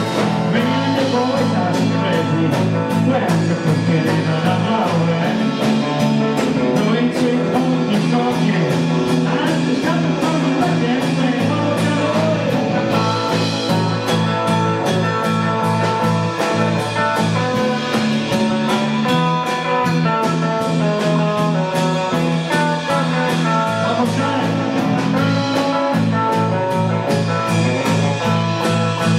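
Live honky-tonk country band playing: electric guitars, acoustic guitar, bass guitar and drum kit, with a steady drum beat.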